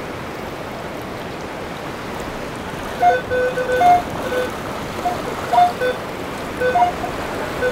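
Surf washing steadily, then from about three seconds in a metal detector sounding a string of short target beeps at a few different pitches as it sweeps over buried metal.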